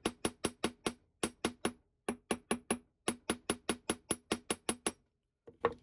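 A small jeweler's hammer striking soft sterling silver wire on a metal bench block, flattening the wire. The strikes are rapid and even, about five a second, with clear metallic rings. They come in runs with brief pauses, stop about five seconds in, and are followed by one or two last taps.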